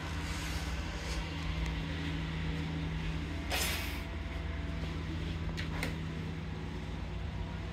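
Steady low rumble of road traffic from the main road outside the apartment. A short hiss comes about three and a half seconds in, and two quick clicks follow near the end, around the wardrobe doors.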